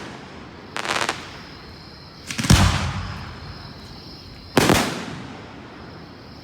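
Aerial fireworks shells bursting: three bangs about two seconds apart, each trailing off in a fading echo. The middle one, about two and a half seconds in, is the loudest and deepest, with a low rumble.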